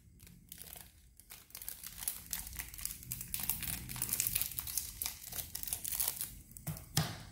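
Plastic wrapping crinkling and rustling as it is handled, with a sharper click just before the end.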